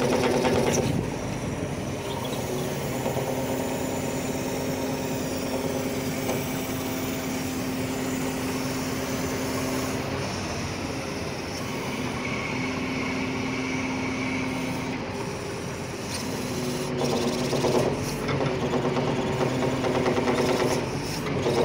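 Hydraulic system of an Atlas 330.1 truck-mounted knuckle-boom crane running as the boom is worked, a steady humming tone with an abnormal metallic sound, louder again near the end. The owner traces the sound to a faulty hydraulic pump, having ruled out the relief valve.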